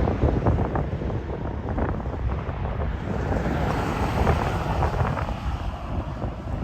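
Wind buffeting the microphone: a low, rumbling rush that rises and falls.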